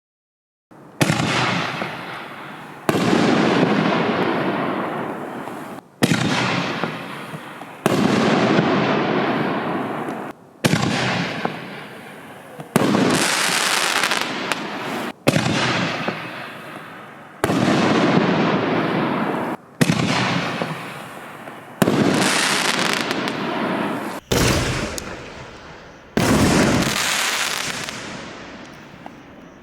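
6-inch canister firework shells going off one after another, about a dozen sharp bangs two to three seconds apart, each trailing off over the next couple of seconds.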